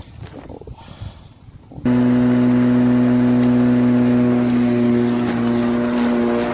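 Litheli 40V brushless cordless lawn mower motor starting abruptly about two seconds in and running at a steady speed with a loud, even hum as the blade spins.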